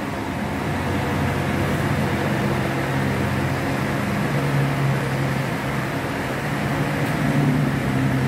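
Steady mechanical hum: a low drone with an even hiss over it, swelling slightly a few times but never stopping.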